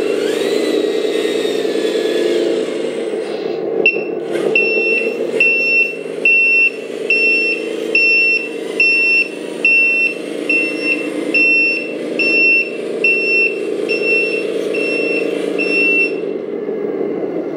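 An RC tractor truck's onboard sound system plays a simulated truck diesel engine running steadily. From about four seconds in until near the end, a reversing warning beeper sounds evenly about every 0.7 s over it.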